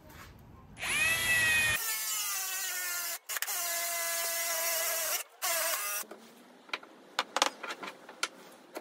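Cordless drill driving a 32 mm spade bit into a wooden block: the motor whines up to speed and runs under load for about five seconds, cutting out briefly twice. After it stops come a few light knocks.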